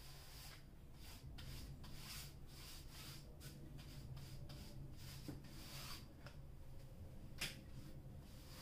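Wide flat brush sweeping varnish across a stretched canvas in repeated soft rubbing strokes, with a single sharp tap about three-quarters of the way through.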